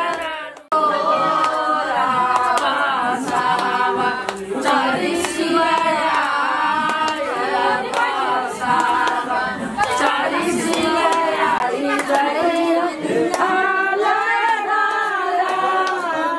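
A group of women singing a wedding song together without instruments; the singing breaks off for a moment just under a second in and then carries on without pause.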